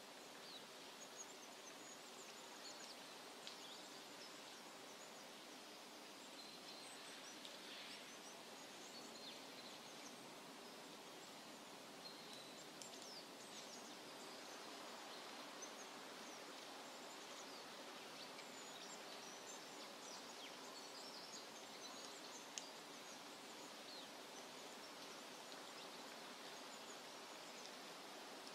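Near silence: faint outdoor ambience with a low steady hum and small birds chirping faintly now and then.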